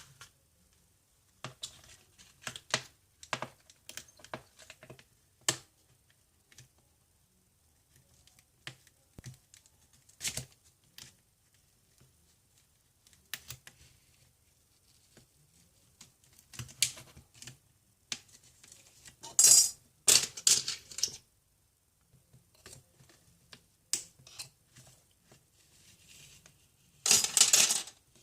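Small hand tools and parts clicking, tapping and scraping against an iPhone 7 as it is opened up for a screen replacement. About two-thirds of the way in and again near the end there are louder scraping or tearing noises, each about a second long.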